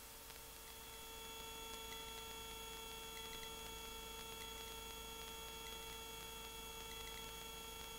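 Faint steady hum with several thin, high, steady whining tones; it gets slightly louder about a second in and otherwise holds constant.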